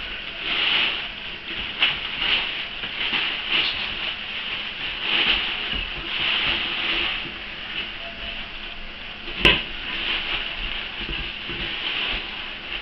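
Plastic bags crinkling and rustling in a metal pot as a baby and a dog rummage through them, with a single sharp knock after about nine and a half seconds.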